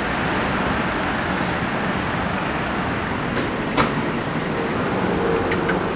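City street traffic noise: a steady rumble and hiss, with a sharp click about four seconds in.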